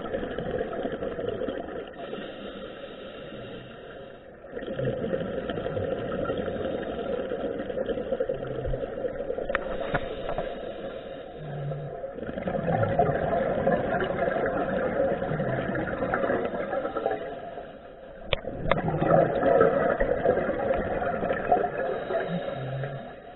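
Scuba divers' regulator breathing heard underwater: long rushing, bubbling bursts as exhaled air streams out, with quieter spells between breaths.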